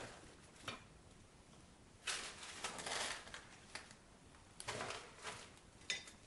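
Rummaging on pantry shelves: rustling of packages and things being shifted, in two longer noisy bursts, with a few short sharp clicks and knocks.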